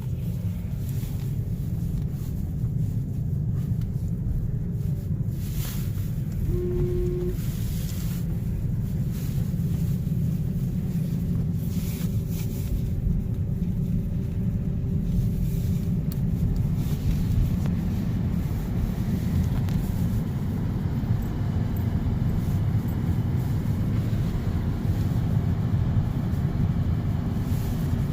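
Steady low rumble of tyre and road noise inside a car cabin, driving on a snowy highway, with a few brief clicks.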